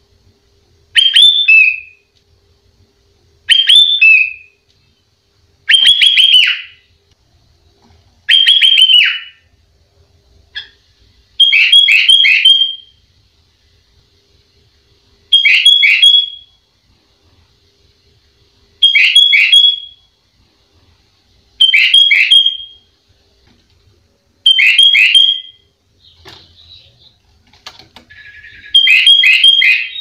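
Sooty-headed bulbul (kutilang) singing: a short phrase of two to four quick, clear whistled notes, repeated about ten times at intervals of a few seconds.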